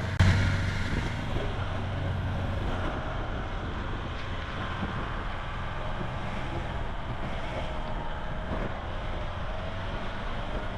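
A vehicle running while on the move, with wind rushing over the microphone.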